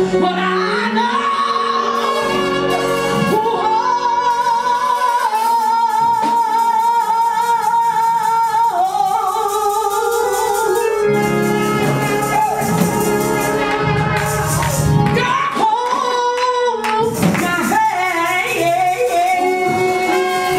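A woman singing a gospel solo into a microphone, holding long notes with a wide vibrato over sustained keyboard chords.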